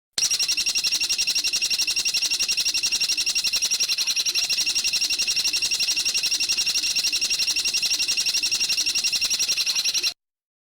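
A bird's rapid, unbroken trill of fast, evenly repeated high notes, held at a steady level for about ten seconds and then cut off abruptly.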